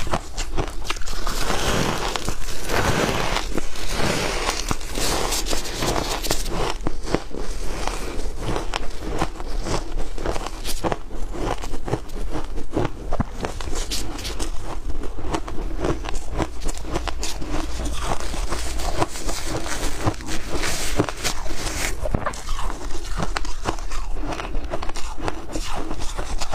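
Frozen ice dusted with milk powder being chewed close to the microphone: a dense, unbroken run of crisp cracks and crunches.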